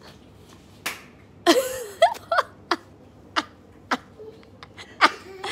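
Scattered sharp knocks and taps from play on a floor, with a few short vocal sounds such as a squeal or laugh.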